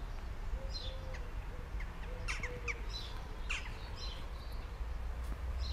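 Small birds chirping and calling, a scatter of short high chirps and quick falling notes, over a low steady background rumble.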